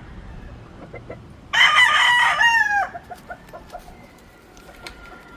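A rooster crowing once, a crow of about a second and a half that drops in pitch at the end, with faint clucking from other chickens around it.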